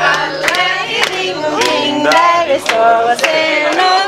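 A group of people singing a birthday song together, with hands clapping on the beat about twice a second.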